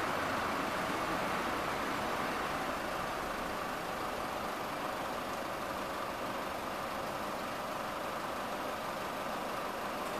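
Steady street noise with an idling car engine, an even hum that holds level with no sudden events.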